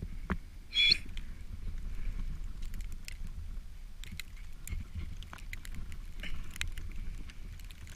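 Footsteps crunching through deep fresh snow, about two a second, over a steady low rumble of wind on the microphone. A brief high-pitched sound comes about a second in.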